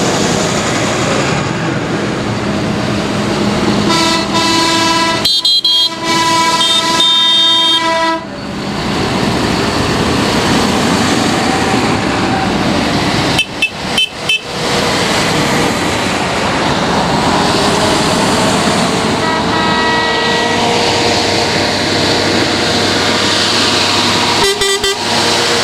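A line of large tractors drives past with engines running, tooting horns as they go. There is a long horn sounding from about four seconds in, broken briefly partway through, a few short stuttering toots around thirteen to fourteen seconds in, another horn near twenty seconds in and quick toots near the end.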